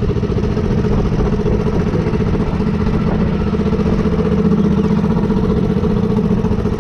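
Engine of a motorized outrigger fishing boat (bangka) running steadily under way, a loud, even drone.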